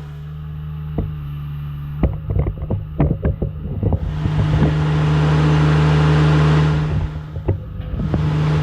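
Mini excavator's small diesel engine running steadily, with a flurry of clanks and knocks about two to three seconds in. Then the engine gets louder for about three seconds and settles back.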